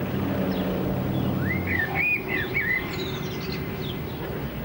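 A light aircraft's engine drones low and steady for about the first two seconds, then stops; birds chirp several times in quick rising-and-falling calls just before the middle.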